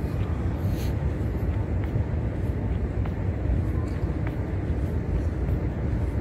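Wind buffeting the microphone of a handheld camera as the person filming walks, a steady low rumble. A few faint clicks come through it.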